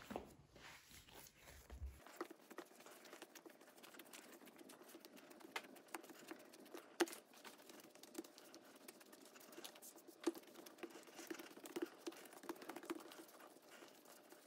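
Bread dough being kneaded by hand on a floured granite countertop: faint, irregular soft pats and squishes, with a couple of sharper knocks from the dough or hands against the stone.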